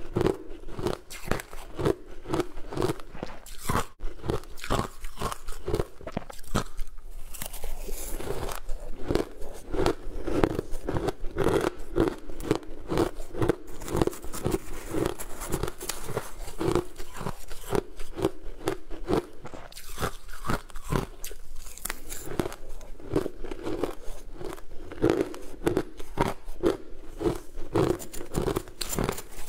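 Close-up crunching and chewing of a mouthful of sweet crushed ice, a rapid run of crisp crunches that goes on without a break.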